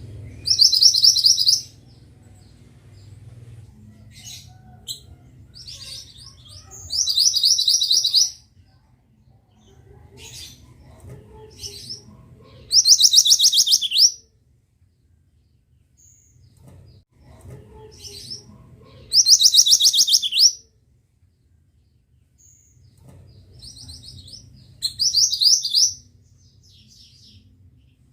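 A mantenan songbird singing: five loud, fast trills of rapidly repeated high notes, each about a second and a half long and roughly six seconds apart, with faint chirps between them.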